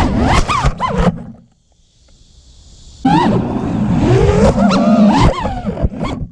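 Brushless motors and propellers of a 5-inch FPV quadcopter whining, the pitch sweeping up and down with the throttle. The sound falls away to a faint hiss for about a second and a half as the throttle is cut, then comes back abruptly about three seconds in.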